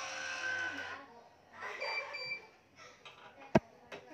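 Digital badminton stringing machine's tension head running for about a second as it pulls a string to tension, then again briefly with short high beeps. Near the end come two sharp clicks from the string clamps, the loudest sounds here.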